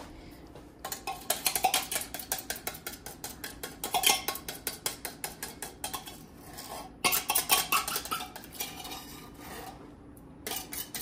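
Metal spoon scraping and clinking rapidly against the inside of a tin can, digging out thick condensed tomato soup, with a brief pause about two-thirds of the way through.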